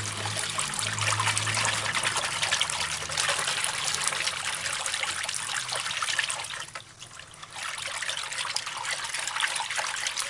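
A hand swishing and rubbing parboiled rice grains in a bowl of water, washing the rice before cooking: water sloshing and grains rustling, with a brief pause about seven seconds in.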